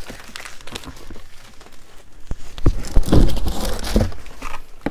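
Packaging rustling and crinkling as items are handled and dug out of a box, with scattered clicks. It gets busier and louder about halfway through, with a few low bumps.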